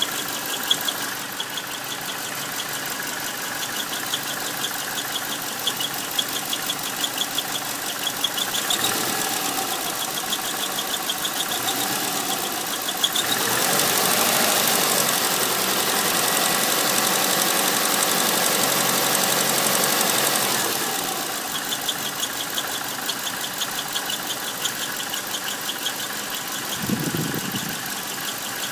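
2001 Subaru Outback's EJ251 flat-four idling with a fast, rhythmic high-pitched squeal that the owner places near the transmission flange, not the belts, pulleys or clutch release bearing; he wonders whether it is crankshaft bearing damage. For several seconds around the middle the engine speed rises and falls, and the squeal goes away while it is raised.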